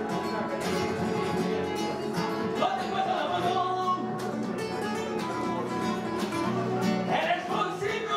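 Nylon-string Spanish guitars playing a flamenco-style rumba number live, with plucked melody notes over chords.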